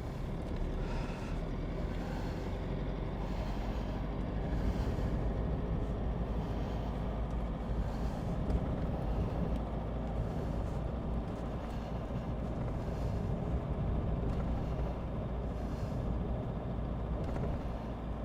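Pickup truck being driven: steady engine and road rumble heard from inside the cab.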